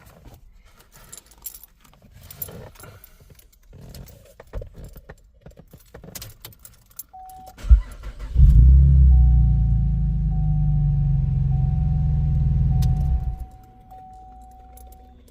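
Keys jangling and clicking in a Chevy Camaro's ignition. About eight seconds in, the engine cranks, catches and runs steadily for about five seconds, then is switched off. Through the running and after it, the car's warning chime keeps beeping, a steady high tone, while the car is tested after a plug behind the ignition area was pulled to cure the stuck key.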